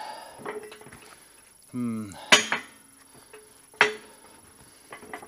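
Steel pressing sleeve clanking against the hydraulic shop press frame as it is lifted off the pressed part and set aside. There are two sharp metallic clanks with a short ring, one about two seconds in and one near four seconds, and lighter clinks between them. A short falling voice sound, like a grunt, comes just before the first clank.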